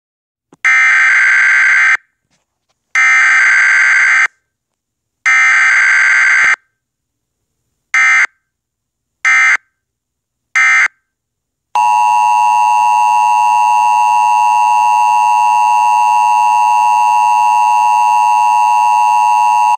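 Emergency Alert System tones: three long bursts of screeching digital data tones, then three short bursts, then the steady two-tone attention signal for about eight seconds.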